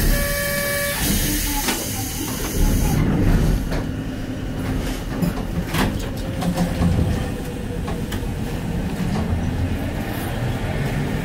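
Hankai Tramway Mo 603 tram standing at a stop, then moving off. A short electronic tone sounds at the start and a hiss of air stops about three seconds in. A clack comes near the middle, then the traction motors whine, rising in pitch as the tram pulls away.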